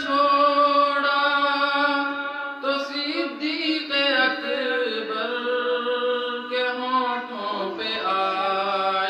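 A young man singing a devotional Urdu kalam solo and unaccompanied, holding long drawn-out notes that shift pitch every few seconds.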